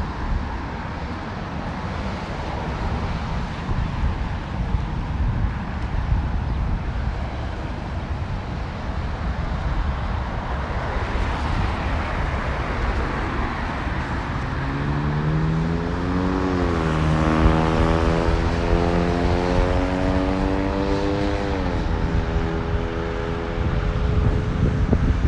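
Steady road traffic noise on a busy street. About halfway through, a vehicle engine accelerates, its pitch rising, dropping back and climbing again for several seconds before it eases off.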